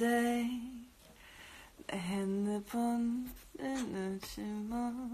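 A woman singing softly without accompaniment: short phrases of held, steady notes with brief pauses between them and a small slide in pitch near the end.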